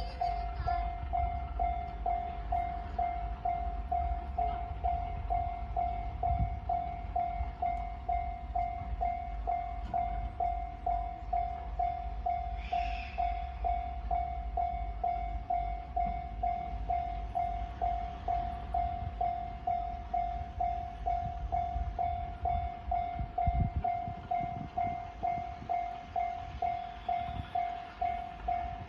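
Japanese railway level-crossing warning bell ringing its electronic "kan-kan" in a steady, even rhythm, over the low rumble of a passing train.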